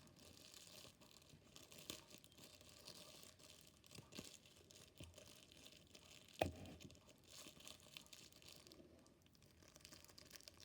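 Faint rustling of a plastic Ziploc bag and clear tape being torn and pressed on as the bag is taped into shape, with a few small clicks and one sharper tap about six and a half seconds in.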